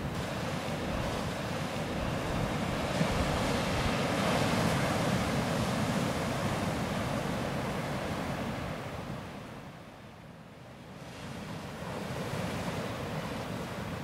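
Sea surf breaking and washing up a beach: a steady rush that swells with each breaking wave, drops away for a moment about two-thirds through as the water draws back, then builds again with the next wave.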